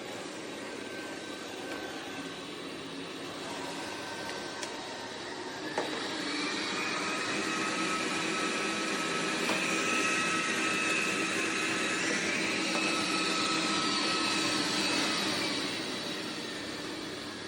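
MOVA P10 Pro Ultra robot vacuum running, a steady whirring hum with a few held tones. It gets louder about six seconds in and falls back near the end, with a single click as it swells.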